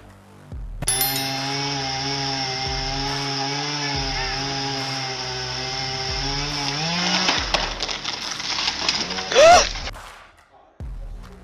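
A chainsaw running steadily under load, its pitch rising about seven seconds in as the engine speeds up. A spell of sharp cracks follows, then a short, very loud rising cry near the end.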